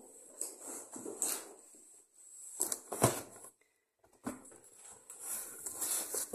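A cardboard delivery box being set down on a stone-effect kitchen countertop and shifted about by hand: irregular knocks, scrapes and rustles of cardboard, with the sharpest knock about three seconds in.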